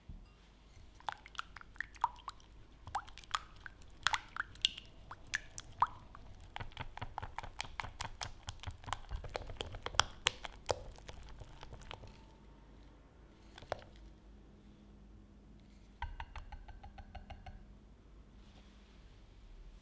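Hand whisk beating mascarpone and fresh cream in a glass bowl, the cream thickening as it is whipped. Scattered wet clicks and taps at first, then a fast, even run of strokes for several seconds that slows and quiets, with a brief rattle of ticks near the end.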